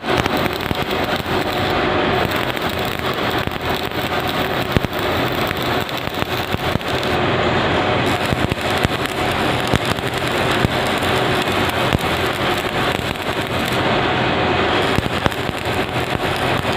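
Stick (shielded metal arc) welding: the electrode's arc crackling and sizzling steadily, with fine spatter pops and a faint hum beneath, as weld is laid on a roller's worn bearing seat to build it up.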